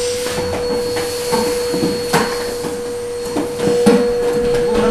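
Canister vacuum cleaner running with a steady whine as its nozzle is worked along a floor grille, knocking and clattering against the slats, with sharper knocks about two seconds in and again near four seconds.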